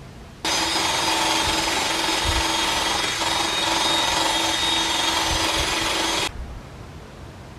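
A power tool runs steadily for about six seconds, making a rough abrasive noise with a steady whine in it. It starts and stops abruptly.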